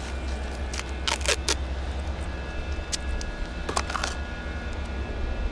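Tape being pulled off a roll in short crackling rips, a cluster about a second in and another at about four seconds, while the end of a PEX water line is wrapped to keep dirt out. A steady low hum runs underneath.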